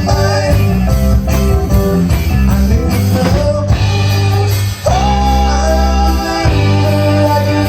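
Background music: a song with singing over guitar and drums with a steady beat.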